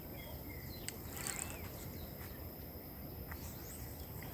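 Outdoor ambience of insects droning steadily at a high pitch, with a few short bird chirps and several sharp clicks scattered through.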